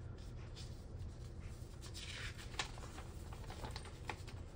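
Paper being handled and pulled off a parcel: soft rustling with a few sharp crinkles, the densest rustle about two seconds in.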